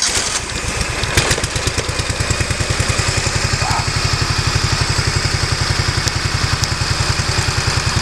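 Portable sawmill engine running steadily with an even, fast pulsing beat, having just started.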